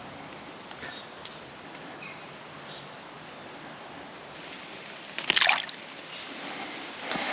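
A shallow creek trickling and running steadily over rocks, with one short, louder splashing noise about five seconds in.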